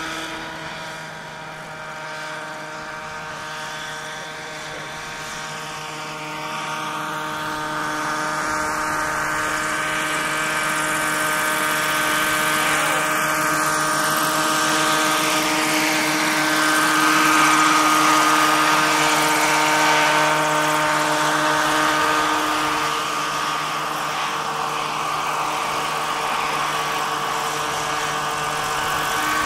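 Radio-controlled scale model helicopter in flight, its engine and rotor running at a steady pitch. The sound swells to its loudest about halfway through as the model passes low and close, then eases off.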